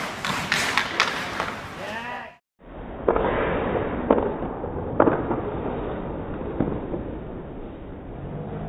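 Ice hockey game sounds: sharp cracks of sticks striking the puck and the puck hitting the boards, over voices in the rink. The sound cuts out for a moment about two and a half seconds in, then more sharp cracks come about once a second.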